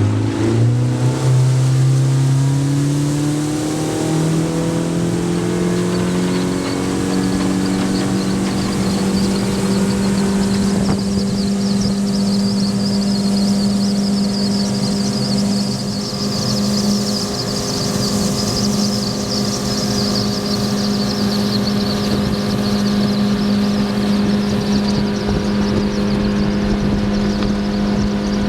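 Yamaha F70 four-stroke outboard motor accelerating, its pitch climbing over the first few seconds, then running steadily at speed. A rushing hiss of water and wind rises over it from about six seconds in.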